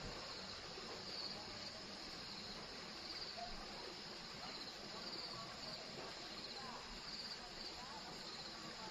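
Insect chirping in short high-pitched trilled pulses, about one a second, over a steady outdoor background hiss.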